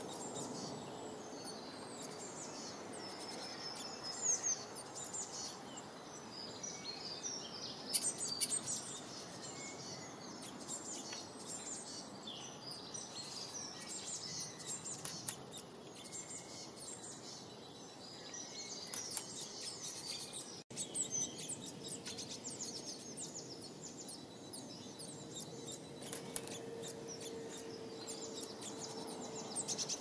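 Several small birds chirping and singing in quick, overlapping high-pitched phrases, over a steady background hiss. The sound drops out for an instant about two-thirds of the way through.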